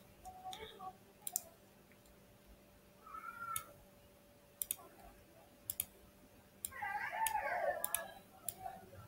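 Scattered single computer-mouse clicks, with a faint cat meow about three seconds in and a longer, louder meow near the end.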